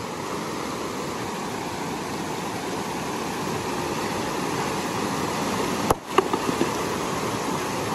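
River rapids rushing steadily over boulders. About six seconds in, a large stone thrown down onto a rock in the river strikes with a sharp crack, with a second knock just after: the stone-strike used to stun fish sheltering under the rocks.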